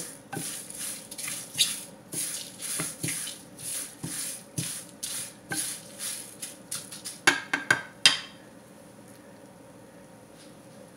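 Wooden spatula stirring and scraping dry-frying spices (dried chillies, curry leaves, fenugreek and cumin) around a nonstick frying pan, in strokes about twice a second. Around seven seconds in come a few sharp knocks, the loudest sounds here, and then the stirring stops.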